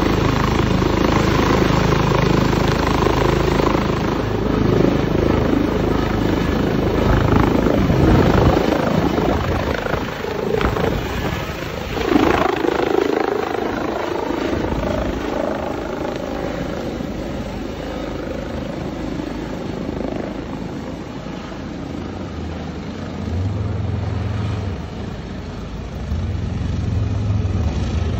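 ADAC air rescue helicopter's rotor and turbine engines running, lifting off and passing close by, loudest about a third of the way in, then fading as it flies off. A low steady hum comes in near the end.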